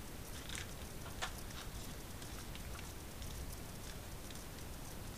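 Scattered light clicks and rustling from hands handling cables and small plastic parts on a desk, with one sharper click about a second in.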